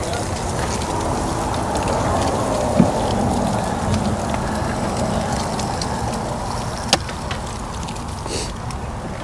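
Liquid pouring from a can onto hot grilled chicken halves packed in an ice chest: a steady hissing splash as it hits the hot meat, with a couple of light clicks.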